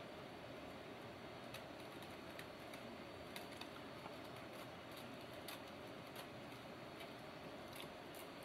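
Faint, scattered light clicks and ticks over quiet room hiss and a thin steady hum: stainless steel wire-mesh screen being bent and rolled into a tube by hand.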